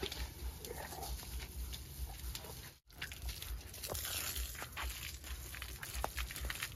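Water from a garden hose spraying and splattering on elephants and a wet road surface, a steady crackling hiss with many small splashes. The sound drops out briefly about three seconds in.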